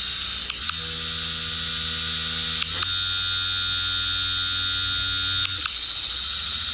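Steady electric buzz from a small vibrating device, the sound taken for a mosquito. Its tone changes abruptly about a second in, about three seconds in and again past five seconds, with faint clicks at the changes.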